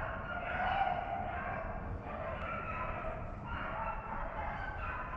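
A pack of rabbit hounds baying without a break, several voices overlapping, as they run a rabbit.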